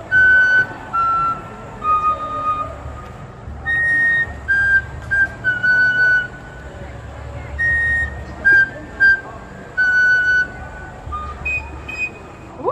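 A simple tune on a flute-like wind instrument: separate held notes, a few seconds' worth of phrase played and then repeated, with short gaps between the notes. A low rumble comes and goes underneath.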